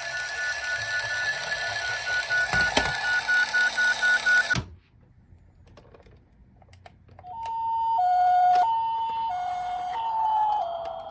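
Electronic sound effects from toy emergency vehicles. A rapidly repeating high electronic beep cuts off suddenly about four and a half seconds in. After a pause with a few small clicks, a two-tone high–low siren like a Japanese ambulance's starts up, switching slowly back and forth between two notes.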